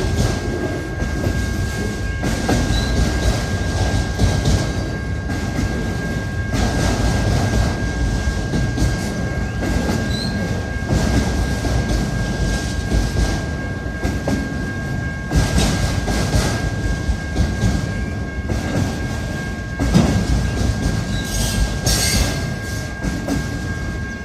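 Intermodal freight train's cars rolling past: a steady heavy rumble of wheels on rail with irregular clatter surges every few seconds, over a thin steady high whine.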